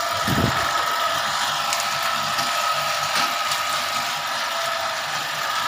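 Electric-motor-driven bamboo strip slicing machine running, with a steady whine and a mechanical rattle as a bamboo strip is fed through it. A brief low thump about a third of a second in.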